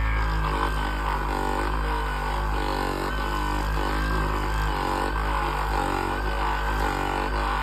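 Ekrin Bantam mini massage gun running steadily, a motor hum with a slight pulse about every two-thirds of a second.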